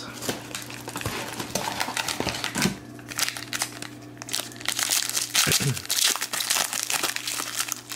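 Foil wrapper of a Panini Donruss basketball card pack crinkling in the hands as it is torn open, loudest about a second in and again from about five seconds in.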